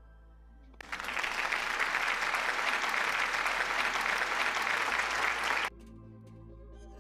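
Applause from a crowd, added as a sound effect: it starts abruptly about a second in, lasts about five seconds, and cuts off suddenly. Faint background music plays before and after it.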